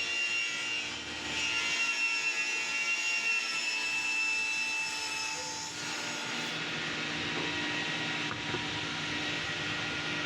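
CNC router spindle running with a high steady whine over a hiss as it cuts wood. The whine dips briefly about a second in and drops away about six seconds in, leaving a steady hiss.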